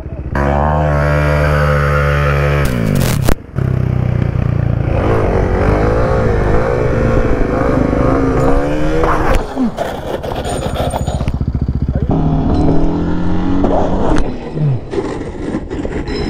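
Kawasaki KLX300SM's single-cylinder engine revving and running, broken by a sudden loud bang, then scraping and clattering as the bike crashes on asphalt after its passenger peg snaps in a wheelie. Near the end the engine runs at idle in even pulses.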